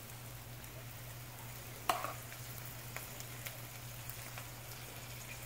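Garlic butter sauce sizzling softly in a pan of boiled crawfish and shrimp as it is ladled over them, with a sharp tap of the ladle against the pan about two seconds in and a few lighter ticks after.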